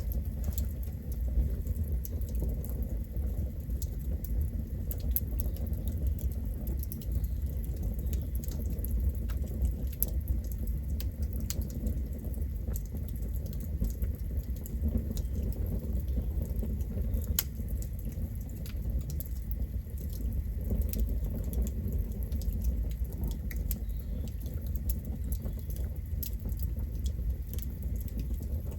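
Campfire burning: a steady low rumble of the flames with scattered sharp crackles and pops from the burning wood.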